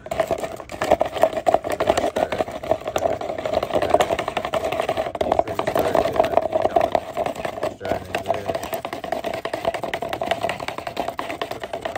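Wooden mixing stick stirring fiberglass resin and hardener in a plastic cup, scraping and knocking rapidly against the cup's sides and bottom.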